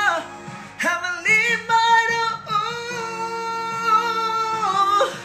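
A man singing along to a backing track, holding a long high note from about a second in until near the end.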